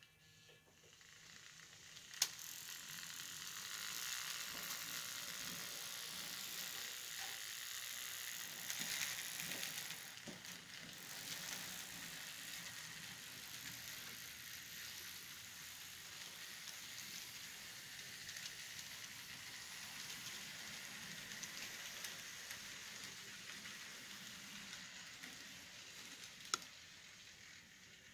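Model railroad freight cars rolling along the track: a steady rattling hiss of small metal wheels on rail, with a sharp click about two seconds in and another near the end.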